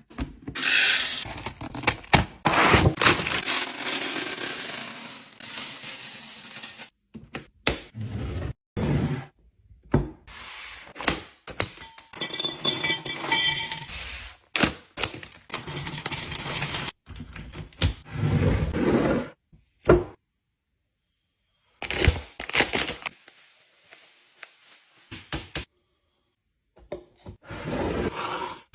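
Drinks and sweets being unpacked and set into a fridge: a string of thunks, knocks and scrapes from bottles, cans and containers being handled and placed on shelves. It comes in short edited bursts, with sudden cuts to silence twice in the second half.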